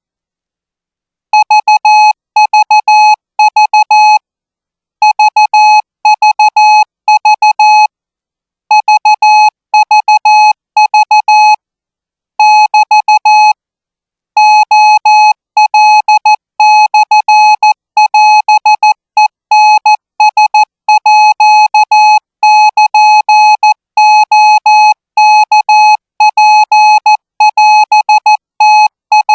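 Thai Morse code practice signal at 20 words per minute: a single steady beep keyed on and off in dots and dashes, grouped into characters with short pauses between them, starting about a second in.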